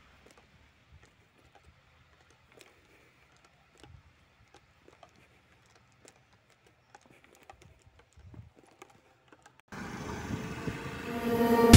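Near silence with scattered faint clicks, then background music cuts in about ten seconds in and builds.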